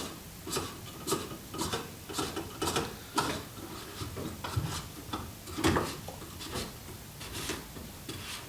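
Plastic drain pump filter cap of a front-load washing machine being screwed back into its housing by hand, giving irregular clicks and scrapes about twice a second as it is turned.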